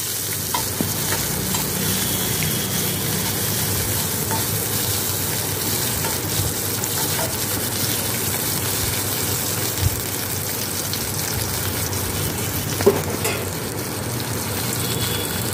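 Chopped ginger, garlic and green chillies sizzling steadily in hot rice bran oil in a stainless steel kadai while being stirred with a wooden spatula, with two brief knocks in the latter part.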